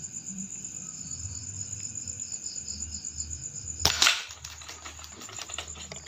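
Crickets chirping steadily, then a single air-rifle shot, a sharp crack about four seconds in that rings briefly.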